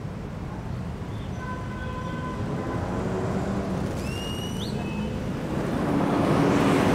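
City street traffic: a steady rumble of engines and tyres that grows louder near the end as an articulated city bus passes close by. A short, high squeal rises about four seconds in.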